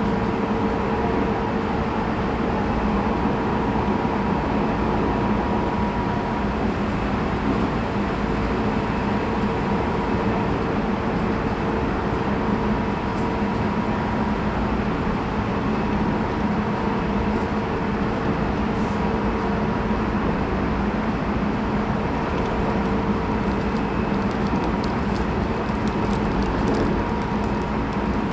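Running sound inside the motor car of a Tobu 20400 series electric train with Toyo GTO-VVVF traction equipment, cruising between stations: steady rumble of wheels on rail, with a constant hum.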